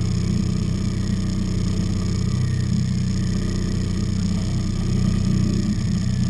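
A fishing boat's engine running steadily with the boat underway: an even, low drone.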